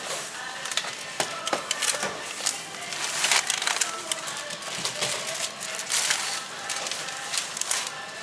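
Thin plastic carrier bags rustling and crinkling in an irregular run of short bursts as groceries are packed into them by hand.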